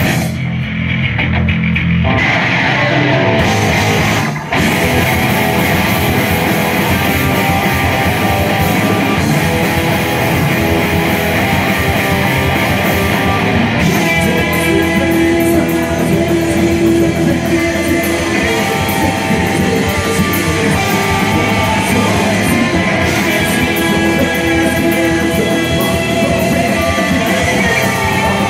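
A live heavy rock band plays with electric guitars, bass guitar and a drum kit. A sparse opening gives way to the full band about two seconds in. There is a short break near four and a half seconds, and the cymbals thicken about halfway through.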